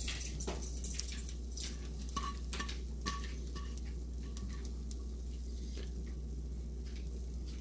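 Shredded cheese being pushed and tapped off a plastic board onto a frittata in a frying pan, with light taps and scrapes in the first few seconds, over a faint steady sizzle from the eggs cooking in the pan.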